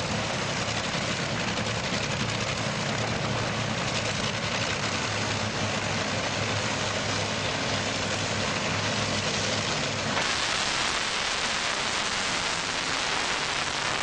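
Two dragsters' engines idling with a loud, rough rumble at the starting line, then about ten seconds in the sound turns into a much harsher, louder roar as they go to full throttle off the line.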